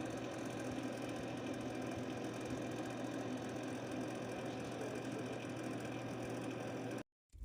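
Computer power-supply cooling fan running with a steady hum and rattle. This is the noise of a dusty, dry fan that cleaning and oiling cure.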